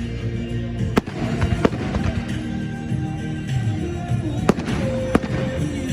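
Fireworks bursting in sharp bangs, about four across a few seconds, over music with sustained notes.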